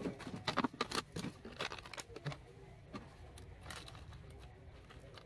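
Thin plastic water bottle crinkling and clicking as it is handled and worked by hand: a quick run of crackles in the first couple of seconds, then only a few scattered clicks.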